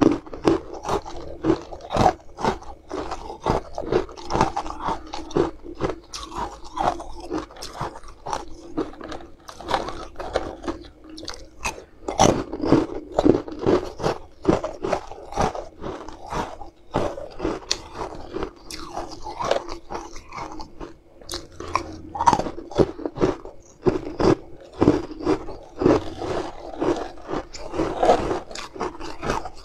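Close-up crunching and chewing of hard frozen green ice pieces: a dense, uneven run of sharp crunches as they are bitten and chewed.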